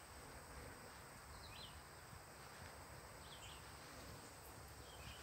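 Near silence: faint outdoor background with a faint, short high chirp repeating about every one and a half to two seconds.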